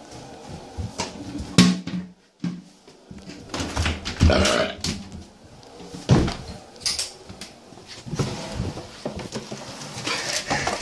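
Handling noise from a phone camera being moved about by hand: rustling and scraping against the body and clothing, with several knocks and clunks, in a small room.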